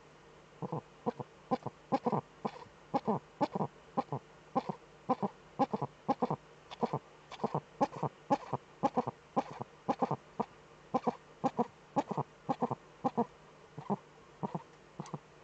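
Eurasian eagle-owl (Uhu) cackling: a long run of short, clipped calls, two or three a second, without a break.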